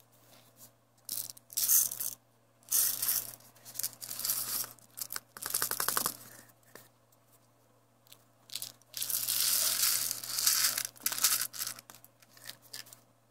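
Washed, soaked rice and then brown lentils poured from a cup into a plastic food-processor bowl: irregular bursts of rustling and pattering as the wet grains slide out and land. The lentils go in near the end.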